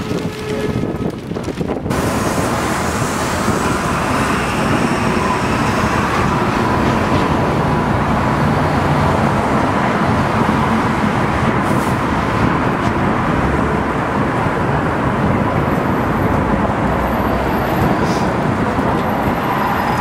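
Traffic on a busy city street: a steady wash of passing cars, which sets in about two seconds in.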